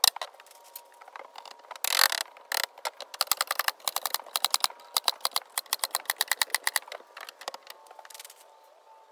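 A fast run of sharp clicks and taps, several a second, with a denser rattling burst about two seconds in. The clicks thin out near the end.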